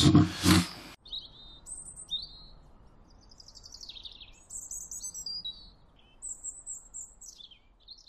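Birdsong from about a second in: several short chirps and quick falling and rising whistled trills, over a faint steady hiss.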